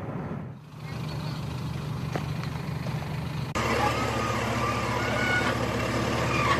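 Steady engine hum of a bus driving along a dirt road. About three and a half seconds in, it gives way abruptly to a backhoe loader's engine running as the machine works its front bucket, with intermittent higher whines over it.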